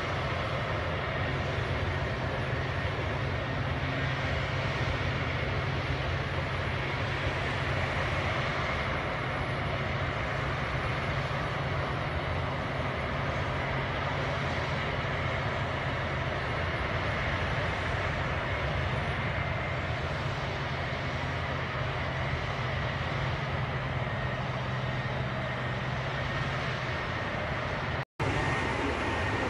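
Crawler bulldozer diesel engine running steadily while the dozer pushes soil, heard as an even low drone with a rough, noisy edge. The sound cuts out for an instant near the end.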